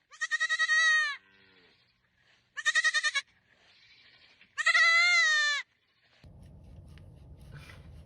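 An animal bleating three times: loud, high, wavering calls, each half a second to a second long.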